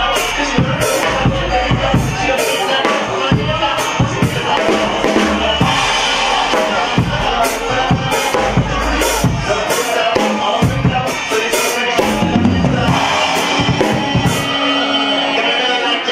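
Acoustic drum kit played with sticks: a busy run of snare, bass drum and cymbal strikes.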